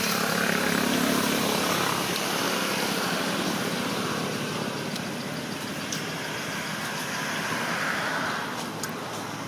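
Steady engine noise with a faint low hum, slowly fading.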